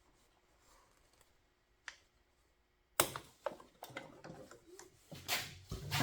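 Small parts being handled and fitted on an engine: one light click about two seconds in, then a sharp knock about three seconds in followed by a run of quick clicks and rattles.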